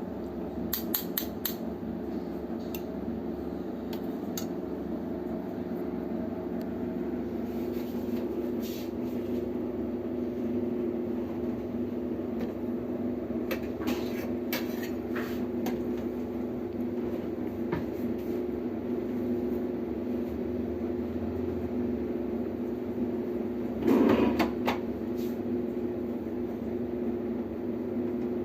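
Steady low hum with scattered light clicks and clinks of dishes being handled, and a louder clatter near the end.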